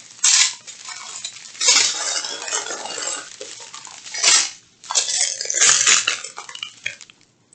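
Small plastic bags of round resin diamond-painting drills being handled, with the drills rattling and clinking inside and the plastic crinkling, in several short bursts.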